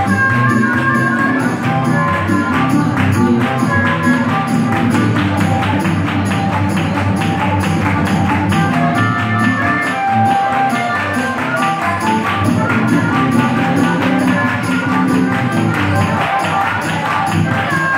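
Live blues band playing, with an amplified harmonica carrying the lead, cupped against a microphone and playing held, bending notes over a low bass line and a steady ticking percussion beat.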